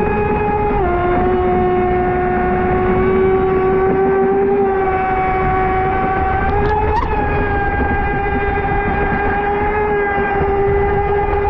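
Pro Boat Sonicwake 36 RC boat's brushless motor running on 6S with a steady high-pitched whine. The pitch drops about a second in, rises slowly to a short peak around seven seconds in, and then settles as the throttle changes.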